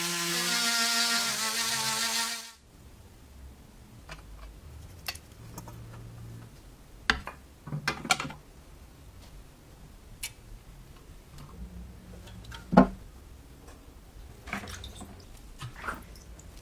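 Background music that cuts off about two and a half seconds in, followed by quiet, scattered small clicks and knocks, the sharpest about two thirds of the way through.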